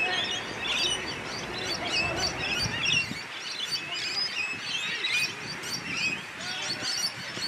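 Many birds chirping repeatedly in quick, short notes, with the voices of onlookers calling underneath.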